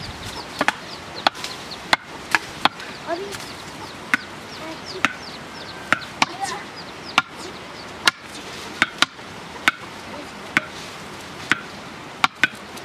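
A long wooden pole striking the ground as it is driven down by hand: sharp, separate thuds about once a second at an uneven pace, with a quick double blow near the end.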